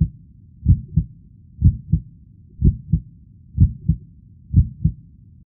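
Heartbeat sound effect: a slow lub-dub double thump about once a second, which stops abruptly near the end.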